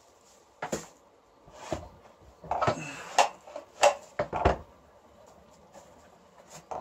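Knocks and clatters of a Titan plunge saw being lifted out of its box and handled, a string of separate bumps over the first four seconds or so, with one more click near the end.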